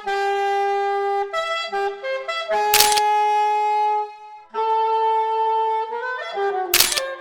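Solo saxophone playing a slow line of long held notes that step between pitches, with a breath pause just after four seconds in and a slide into a lower note near the end. Two sharp knocks cut across the playing, one about three seconds in and one near the end.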